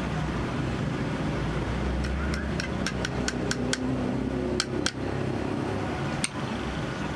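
Light, sharp metallic taps: a quick even run of about seven, roughly three a second, then two close together and one last tap, over a steady low traffic hum.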